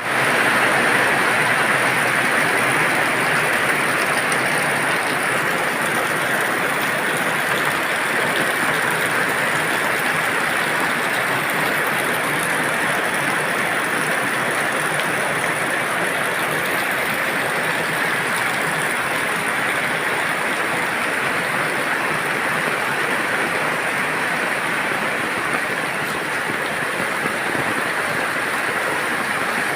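Steady rain falling: an even hiss that barely changes.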